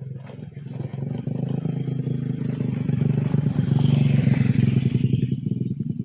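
A motor vehicle's engine passing close by, growing louder to a peak about four seconds in and then fading.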